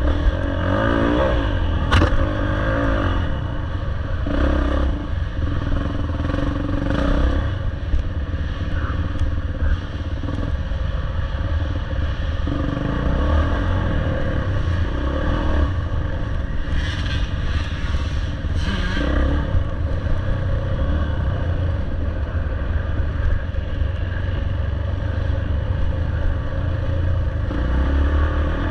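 Off-road dirt bike engine running and revving up and down under load, with clattering and scraping over it, including a sharp knock about two seconds in.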